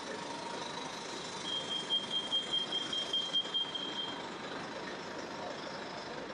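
A rapid high-pitched electronic beeping, about five quick beeps a second for some two and a half seconds, over the steady noise of city street traffic.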